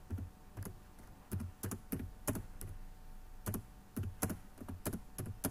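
Computer keyboard being typed on: a run of separate, unevenly spaced keystrokes as a word is typed out letter by letter.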